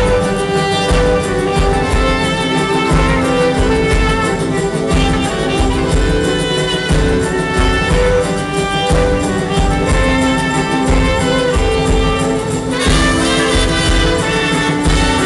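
Live band playing an instrumental passage on mandolin, ukulele, trumpet, accordion and drums, over a steady beat. A second trumpet joins near the end and the sound gets brighter.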